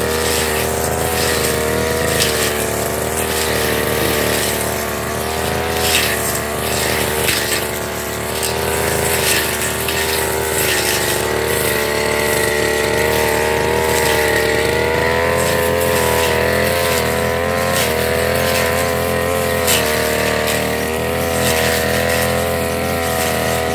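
Backpack brush cutter's engine running fast while its blade cuts through tall grass and weeds. The engine pitch dips and recovers as the cutter bites into the growth, with short rasps from the cutting.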